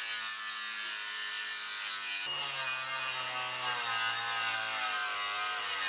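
Ridgid angle grinder running steadily, its disc grinding through the welds of a steel factory bracket with a continuous whine. Its pitch drops slightly about two seconds in.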